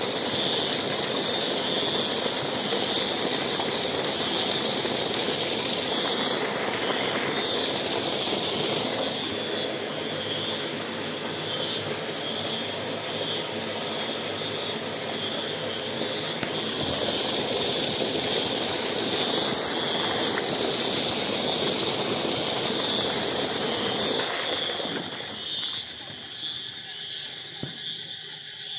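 Steady rush of water pouring from a submersible pump's discharge pipe. Frogs call throughout in a fast, pulsing chorus. The rush falls away about 25 seconds in, leaving the frogs.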